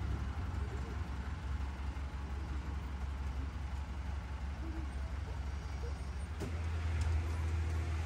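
Engine of a small tourist road train running steadily while riding, a low hum. There is a click about six and a half seconds in, after which the hum grows louder.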